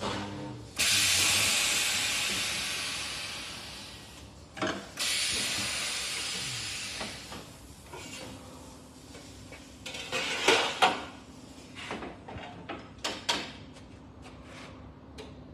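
Compressed air hissing from a powered magnetic sheet-metal brake: two sudden loud bursts, each trailing off over about three seconds. Near the end come a couple of sharp metal clanks and some lighter knocks.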